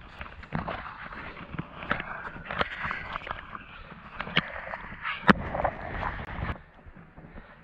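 Hiking boots crunching through snow on a mountain path, with sharp clicks and knocks among the steps and one loud knock about five seconds in. The crunching stops abruptly near the end, leaving a faint wind haze.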